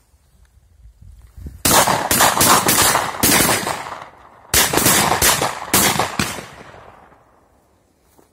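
Several shotguns firing at flying ducks: a rapid volley of about a dozen shots in two bursts, the first starting about a second and a half in and the second about three seconds later. Each shot echoes and fades away.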